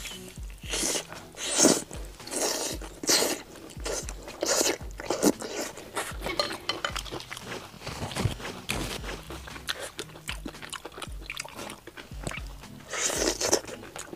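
Close-up eating sounds: crunchy bites and chewing of crisp-skinned chicken, coming in irregular bursts, over background music.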